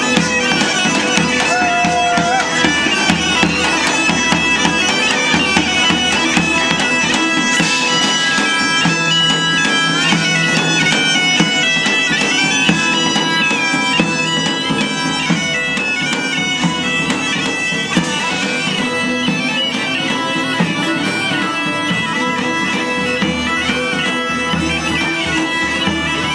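Bagpipes playing a tune together over their steady drone, as part of a medieval-style folk band.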